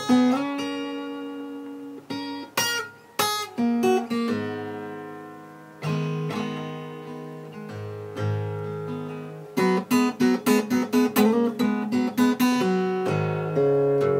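Acoustic guitar played solo: plucked notes and chords left to ring, then a quick run of notes about ten seconds in.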